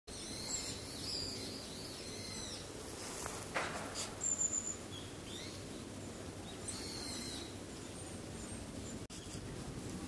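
Black-faced buntings giving a few short, thin, high call notes over a steady background hiss, the loudest around four seconds in, with a brief sharp sound just before them.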